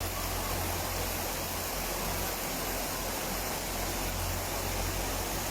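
Torrential storm rain making a steady, even hiss, with a deep rumble underneath.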